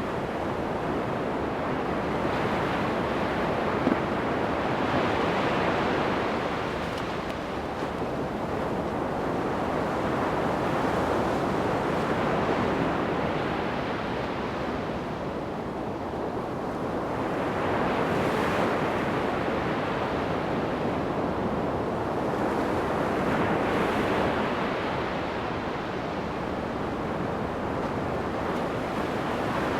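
Ocean waves breaking on a sandy beach. The continuous surf swells and eases as a new wave breaks about every six seconds.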